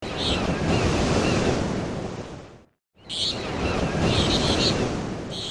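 Outdoor nature ambience: a steady rushing noise with high chirping over it. It fades out about two and a half seconds in, breaks off into silence briefly, and starts again about three seconds in with more chirps.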